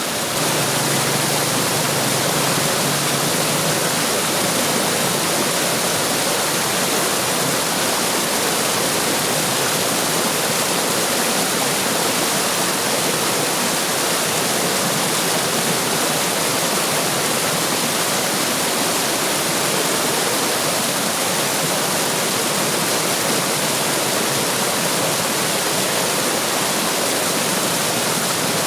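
Running water splashing and rushing steadily, as of a stream or small waterfall.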